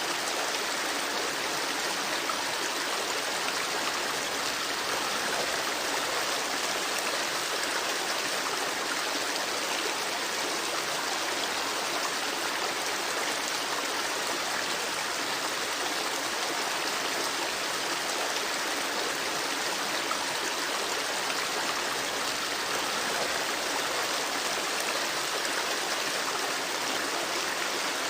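Flowing water running steadily, an even rushing sound without distinct pops or splashes.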